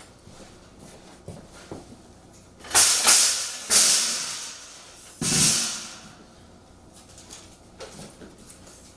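Three loud scraping, hissing noises, the last about a second and a half after the first two, each trailing off: the carrier's heavy steel mesh gate being dragged and lifted.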